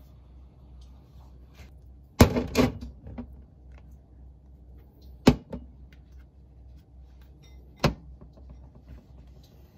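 Condiment bottles and tubes set down one by one on a counter, each a sharp knock: a short cluster of knocks a little over two seconds in, then single knocks about five and about eight seconds in, over a low steady hum.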